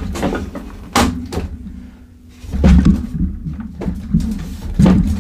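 Hard injection-molded plastic playset pieces knocking and clacking together as walls are pushed into the floor's notches: several sharp clicks with a few duller thumps.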